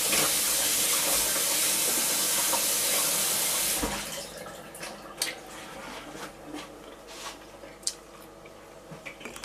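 Kitchen tap running in a steady stream for about four seconds, then turned off, followed by a few faint clicks and knocks.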